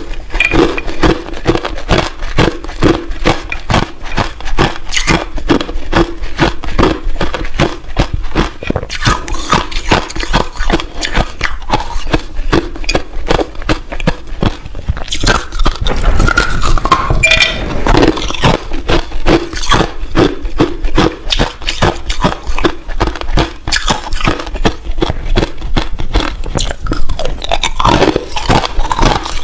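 Hard ice crunching and cracking up close, a rapid, continuous run of sharp crunches.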